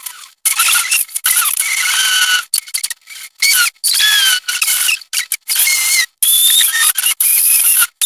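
A string of short squeaky sound effects, each a hissy chirping with whistle-like tones gliding up and down, cut off abruptly with brief silent gaps between them, about a dozen in all.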